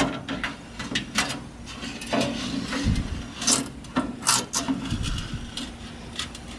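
Toaster oven's sheet-metal crumb tray being slid out by hand, scraping and clicking in its runners in a string of irregular scrapes and knocks, starting with a sharp click.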